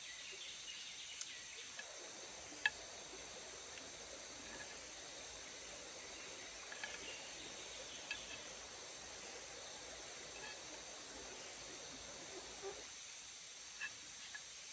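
A steady drone of forest insects, with a few sharp clinks of a metal spoon against a metal bowl during eating, the loudest about three seconds in.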